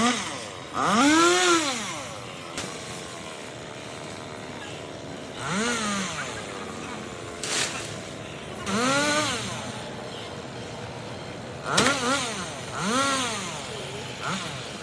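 Chainsaw engine idling, revved up and let back down four times, each rev a rise and fall in pitch lasting about a second.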